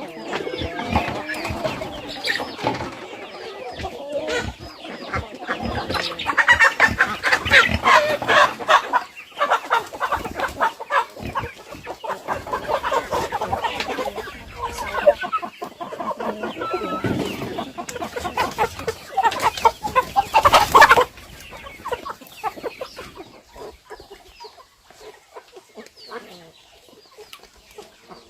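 A flock of chickens clucking, dense and loud through most of the clip, thinning out over the last several seconds.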